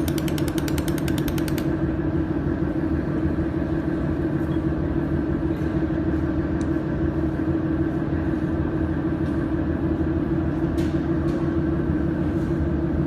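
Mold-repair laser welding machine running with a steady hum. Its pulsed laser ticks rapidly, about eight pulses a second, and stops about a second and a half in, leaving a few single clicks.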